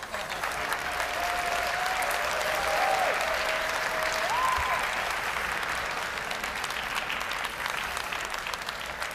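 Audience applauding, loudest in the first half and slowly easing off. A thin, wavering whistle runs through the clapping for a few seconds and steps up in pitch near its end.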